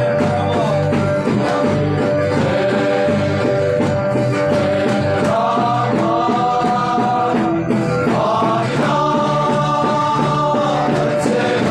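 Loud group singing of a hymn over a steady beat, music for a crowd dancing in worship.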